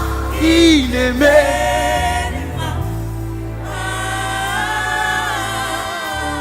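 Live gospel worship music: voices singing a slow, drawn-out worship melody over sustained keyboard and bass chords.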